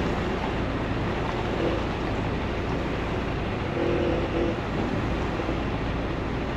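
Steady rumble and hiss of a semi truck running, with a faint short tone about four seconds in.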